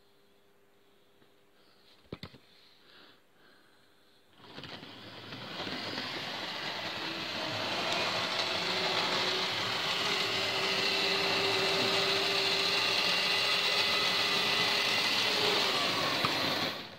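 Hornby model train running on the layout's track: the locomotive's small electric motor whirs and the wheels rattle on the rails. It starts about four seconds in, grows louder over the next few seconds, then cuts off sharply near the end. A single click comes about two seconds in.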